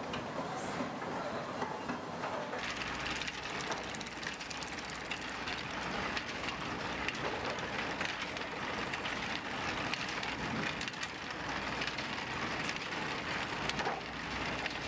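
Steady mechanical clatter of roof-tile factory machinery, thick with rapid clicks and rattles. It turns sharper and more high-pitched about two and a half seconds in.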